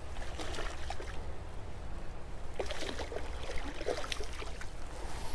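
Creek water running and lapping, with scattered small splashes and clicks over a steady low rumble. The splashes and clicks are busiest from about two and a half to four seconds in.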